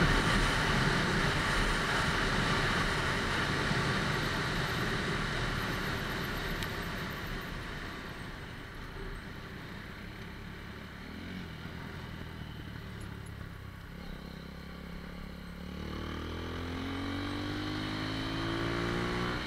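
Lexmoto ZSX-F motorcycle being ridden: a steady rush of wind and engine fades as the bike slows. Then, about sixteen seconds in, the engine note rises steadily in pitch as it picks up speed again.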